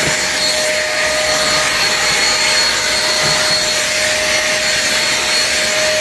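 Handheld stick vacuum cleaner running steadily as it is pushed over a ribbed rug: an even rush of suction under a motor whine held at one pitch.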